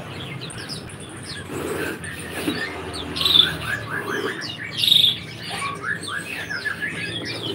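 Many small caged songbirds chirping and calling at once in quick overlapping chirps, with two louder calls about three and five seconds in.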